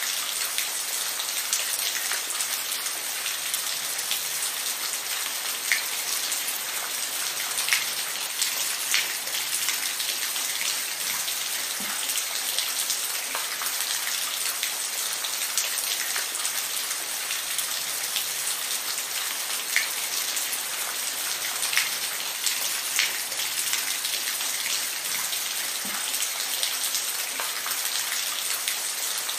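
Steady rainfall: a dense, even hiss of rain with scattered louder drops ticking on a surface now and then.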